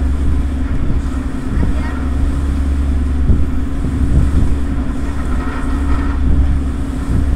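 Passenger ferry's engines running with a steady low drone and hum heard from the deck while under way, with some wind on the microphone.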